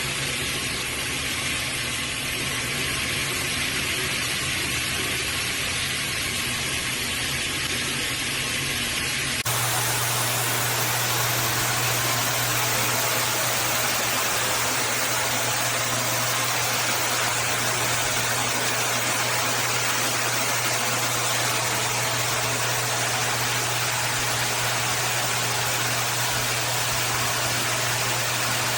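Water spraying steadily from a shower head, a continuous hiss. About nine seconds in the sound changes abruptly and a low steady hum joins the spray.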